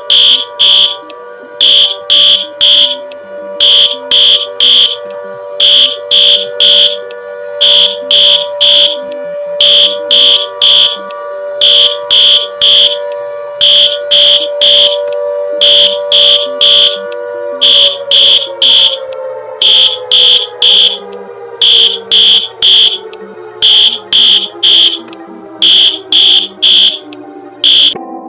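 Electronic emergency alert alarm: loud bursts of about three short, high beeps repeating roughly every two seconds over a steady lower tone. About eighteen seconds in, the lower tone begins sliding steadily down in pitch, and the whole alarm cuts off at the end.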